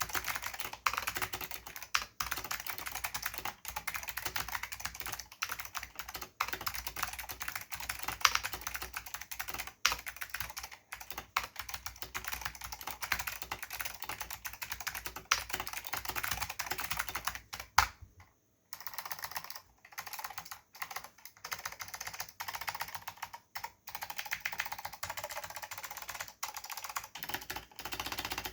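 Steady, fast typing on a custom Filco Zero mechanical keyboard with clicky Alps SKCM White switches, lubed with dry lube, under Alps doubleshot keycaps. A dense run of key clicks, with one short pause about two-thirds of the way through.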